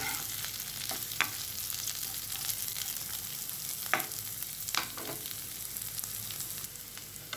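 Chopped vegetables (cauliflower, capsicum, carrot, peanuts) sizzling in oil in a nonstick frying pan, with a plastic spatula scraping and knocking against the pan several times as they are stirred.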